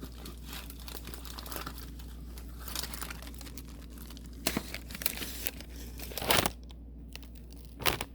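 A package of Peeps marshmallow bunnies being torn open by hand: the plastic wrapper crinkles and crackles throughout, with a few sharper, louder rips in the second half.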